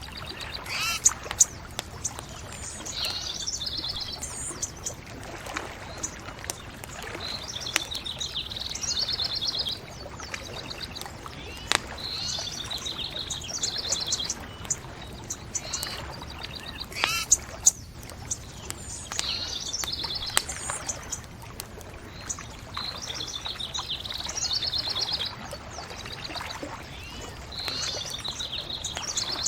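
A songbird singing a short, high trilled phrase over and over, a new phrase every three to four seconds, over the sharp pops and crackle of a bonfire and a steady low rush.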